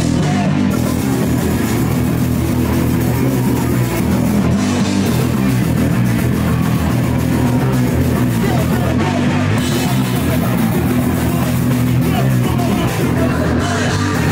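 Rock band playing live, with guitar and drum kit, loud and steady with no singing.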